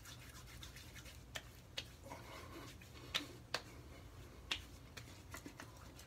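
Hands patting and slapping aftershave splash onto the face. There are several sharp slaps, the loudest a little past the middle and a few lighter ones near the end, with faint rubbing of wet skin between them.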